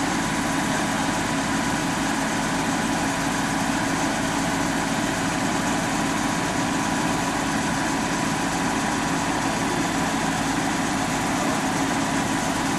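Tractor engine running steadily at a constant speed, powering a three-point-hitch hydraulic well-drilling rig.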